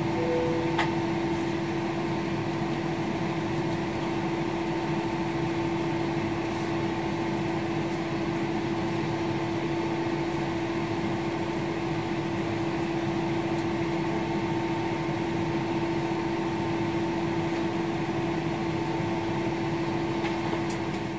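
Steady cabin hum of an airliner holding on the ground with its engines idling and the air-conditioning running: an even rushing noise with a constant low drone tone, and one faint click about a second in.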